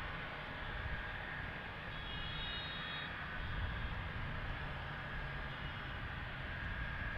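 Steady distant jet aircraft noise at an airport, with a faint steady high whine over a low rumble.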